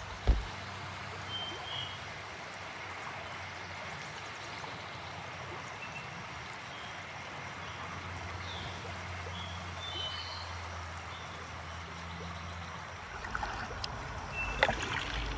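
Steady rush of flowing river water, with a few short bird chirps scattered through it. A sharp knock comes just after the start, and a few more knocks near the end.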